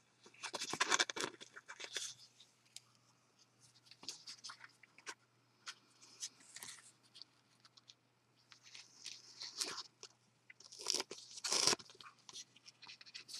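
Glimmer paper and ribbon being handled as the pointed ribbon end is pushed through a punched hole, giving short irregular crackles and rustles. The crackling is busy at first, thins out in the middle, then picks up again near the end.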